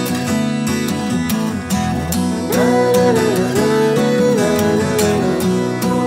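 Background music: acoustic guitar strumming a steady beat, with a melody line entering about two and a half seconds in.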